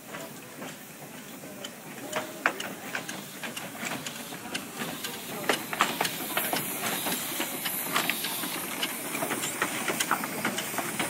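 Narrow-gauge class 764 steam tank locomotive moving slowly past close by. Steam hisses out low at its cylinders, with scattered clanks and knocks from the running gear. It gets louder over the first couple of seconds as it comes near.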